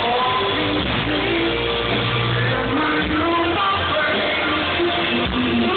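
Live rock band playing through a large outdoor PA: sung melody with held notes over guitar and bass. The recording is muffled and thin, as from a phone among the crowd.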